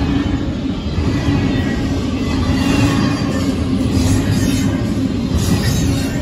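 Double-stack intermodal freight cars rolling past a grade crossing, a steady loud rumble and rattle of steel wheels on the rails.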